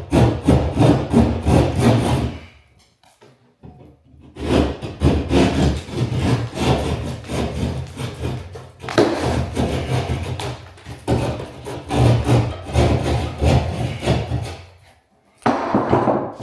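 Drywall being cut by hand with a saw, in runs of rapid back-and-forth rasping strokes with a short pause about three seconds in, as a round hole for a recessed can light is cut out of the ceiling. The sawing stops about a second before the end.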